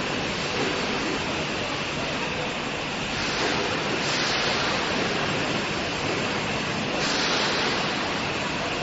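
Steady rushing industrial noise from a foundry floor while an induction melting furnace pours molten metal into a ladle, with a couple of brief louder hisses.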